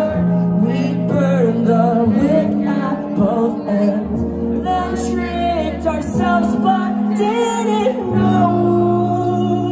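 Post-hardcore band playing live: a high male lead vocal sung over guitars, bass and drums. The sustained low chords change about four, six and eight seconds in.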